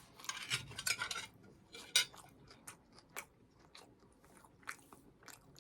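A person chewing a mouthful of microwaved steak and cheese sub: a run of soft chewing noises in the first second or so, then a few scattered small clicks.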